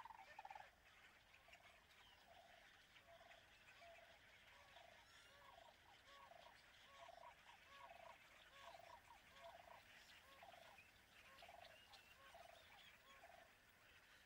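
A faint, steady run of short, repeated animal calls, about two a second, with higher chirping going on behind them.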